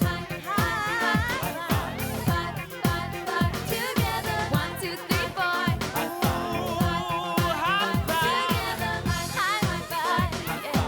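Upbeat pop/disco music with a steady drum beat and a bending melody line.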